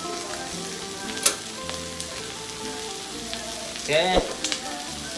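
Chopped pork sisig sizzling steadily in a hot pan over a gas burner, with a spoon stirring it and one sharp clink of metal on the pan about a second in.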